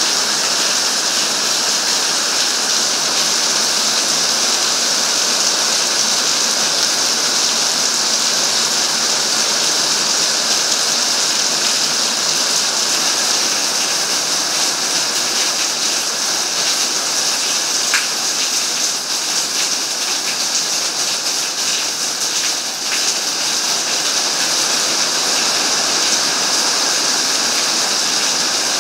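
Heavy tropical downpour: rain hammering onto paving and puddles, a dense, steady hiss that never lets up.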